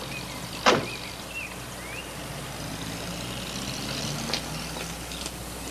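A car door shuts once, sharply, about a second in, over a low steady rumble, with a few faint bird chirps early and a small click near the end.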